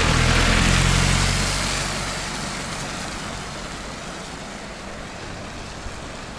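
A motor vehicle passes close by. Its engine and tyre noise peak about half a second in, then fade away over the next few seconds.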